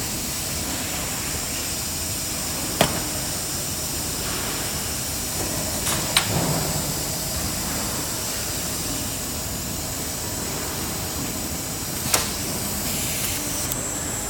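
Nut and stud welding machine firing welds: three sharp cracks several seconds apart over a steady hiss.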